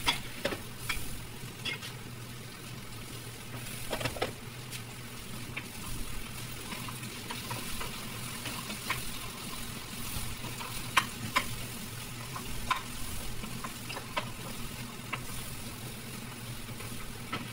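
Chicken pieces and potato sizzling as they brown in hot oil in a frying pan, a steady hiss broken by scattered sharp clicks and pops.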